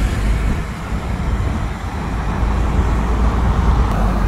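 Steady road and engine rumble of a moving car.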